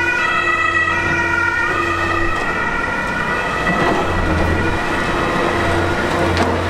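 Diesel engine of a Liebherr R 960 high-reach demolition excavator running, with a high pitched whine over it that shifts in pitch in steps, and a couple of sharp knocks near the end.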